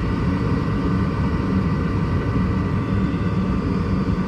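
Lennox gas package unit running as it cycles on for heat: a steady low rumble with a constant hum that holds unchanged throughout.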